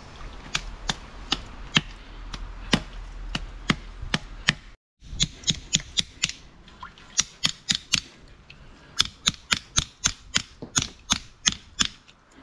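Knife work on a barracuda: a fast series of sharp clicks or taps, about three a second, broken off briefly about five seconds in.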